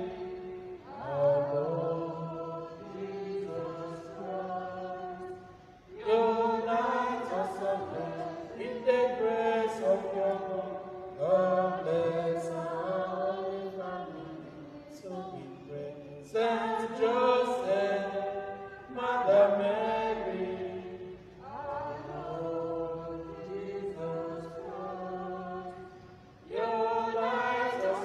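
Slow liturgical chanting: voices sing held notes in phrases a few seconds long, with brief pauses for breath between them.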